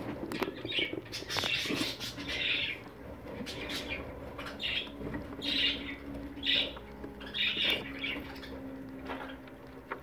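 Newly hatched budgerigar chicks' short, raspy begging calls, repeated about once a second, with small clicks and rustles in the nest box.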